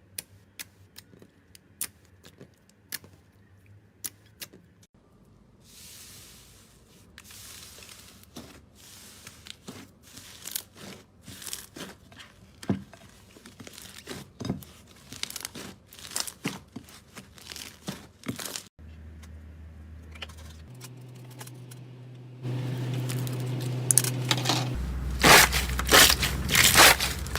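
Slime being pressed and poked by hand, with sharp clicks and crackles, sparse at first and denser after about five seconds. Near the end it turns into much louder, rapid crunching.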